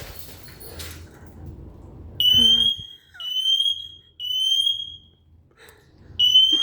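Smoke alarm sounding its high-pitched beep in the three-beep evacuation pattern: three long beeps a second apart, a pause, then the next set starting. Before the alarm starts, the noise of the thrown light bulb's glass shattering dies away in the first second.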